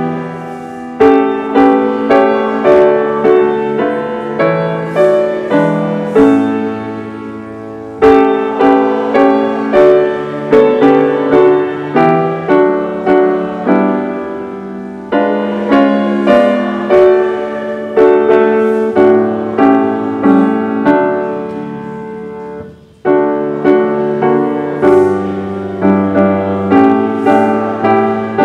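Piano playing slow chordal music in phrases. Each chord is struck and fades, and there are short breaks between phrases about 8, 15 and 23 seconds in.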